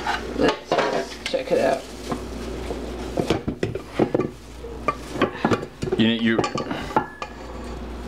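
A stand mixer's stainless steel bowl and beater being handled, with irregular clinks and knocks of metal against metal and the counter.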